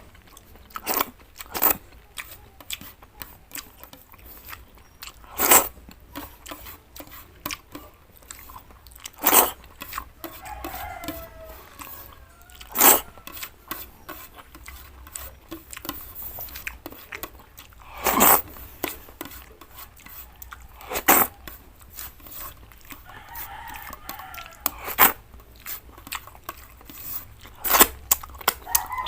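Close-up chewing and crunching of cooked vegetables, with sharp clicks and crunches every second or two. A rooster crows faintly in the background a few times.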